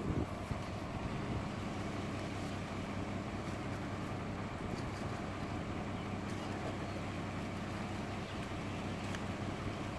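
Steady low hum of an idling truck engine, with a few faint clicks over it.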